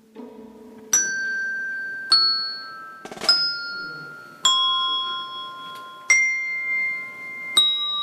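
A short melody of six single notes struck one at a time, about a second apart, on a set of tuned bells; each note rings on and fades, played slowly as a sequence to be memorised and repeated.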